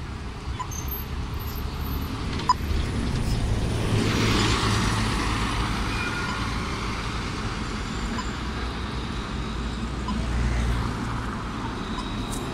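Dublin Bus double-decker driving past close by. Its engine and tyre noise swell to a peak about four seconds in and then fade as it pulls away, over a steady low rumble of city traffic. There is a single sharp click about two and a half seconds in.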